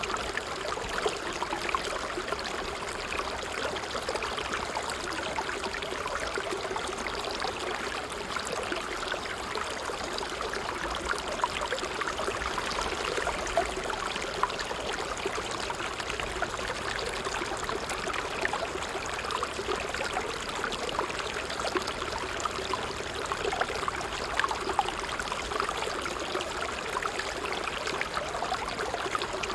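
Water trickling steadily over stones, with a constant run of small splashes and babbles.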